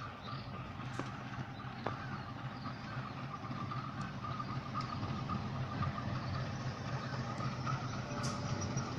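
CC 201 diesel-electric locomotive approaching at low speed, its diesel engine a steady low drone that slowly grows louder.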